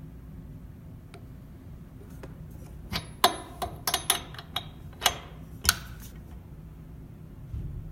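Ratchet of a Craftsman torque wrench clicking as a spark plug is turned in: about eight sharp, unevenly spaced clicks a few seconds in, over a low steady hum.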